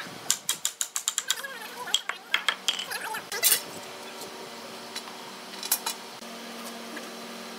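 A fast run of sharp metallic clicks, then a few scattered knocks, as a long steel bar clamp is worked and laid across a hardwood bed rail. A faint steady low hum comes in about four seconds in.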